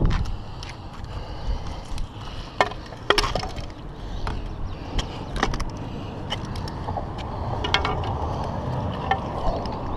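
Scrap steel being pried off a magnet-fishing magnet and handled, giving a scattered series of sharp metal clinks, knocks and scrapes over a low steady rumble.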